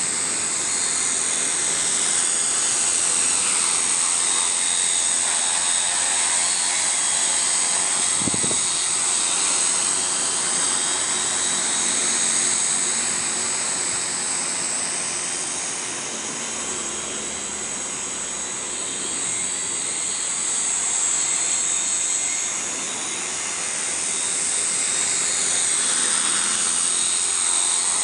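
Multirotor agricultural spraying drone (5-litre tank) in flight, its propellers and motors giving a steady high whine whose pitch rises and falls as the drone manoeuvres.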